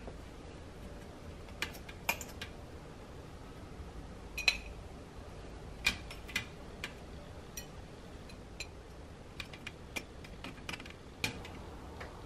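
Metal kitchen tongs clicking and tapping against a metal wire cooling rack as glazed fried sweet potato pieces are picked off it. The clicks are sharp and irregular, more than a dozen in all.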